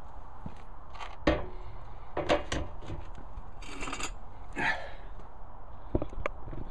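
Handling noise from a camera being picked up and moved about: a few sharp knocks and thumps with rustling and scraping in between.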